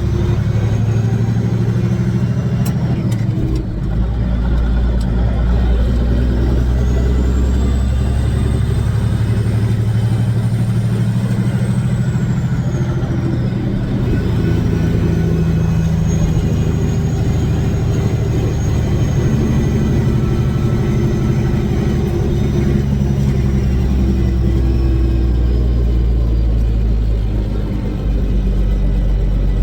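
Kenworth W900's Caterpillar diesel engine running as the truck is driven, with its new turbocharger whistling: a thin whine that rises and falls in pitch three times over the engine's steady drone, with a brief dip in the engine sound a few seconds in.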